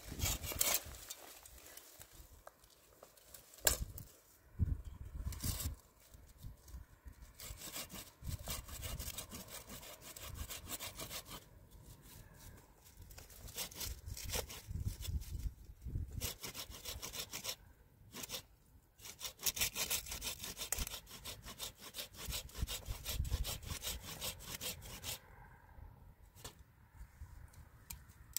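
Saw cutting through wood in steady back-and-forth strokes, stopping for a few short pauses.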